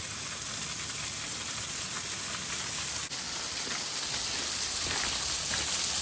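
Steady hiss of a small waterfall splashing onto beach shingle, slowly growing louder.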